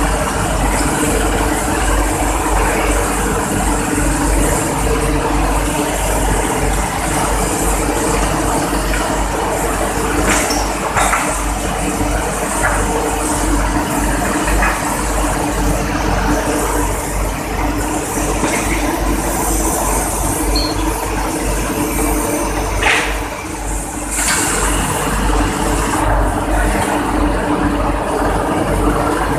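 Hot steel rolling mill in operation: a steady, loud drone of roll stands and their drives, with a low steady hum and a few metallic clanks.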